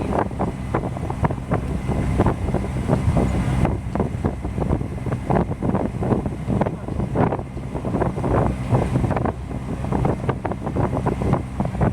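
A vehicle engine running steadily at a low pitch, with wind buffeting the microphone and snatches of voices over it.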